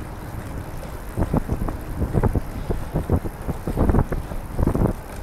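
Wind buffeting the microphone of a camera riding on a moving recumbent trike: a low rumble broken by irregular gusts, strongest from about a second in.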